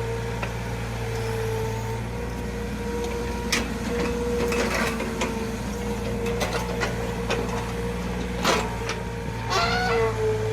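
Mini excavator's engine running steadily with a steady whine over it, and scattered knocks and clanks from the working machine, the loudest about eight and a half seconds in.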